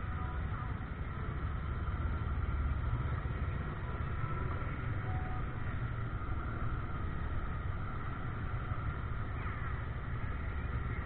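Steady low rumble of a vehicle moving at parade pace, heard from aboard.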